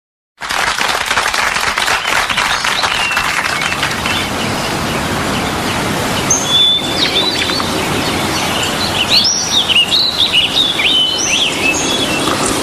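Birds chirping and singing over a steady outdoor background hiss. The chirps and short trills are busiest from about six seconds in.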